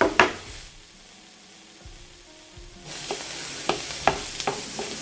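Diced courgettes, aubergines and onions sizzling in a hot frying pan, with a click near the start and several light taps of utensils against the pan near the end. The sizzle dies back for about two seconds and returns about three seconds in.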